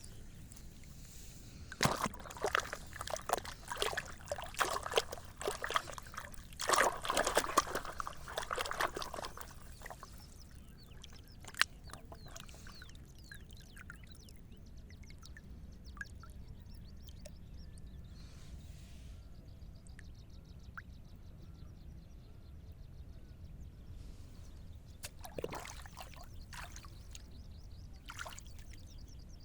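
Water splashing and pouring in bursts, busiest in the first third and again near the end, with a single sharp click in between.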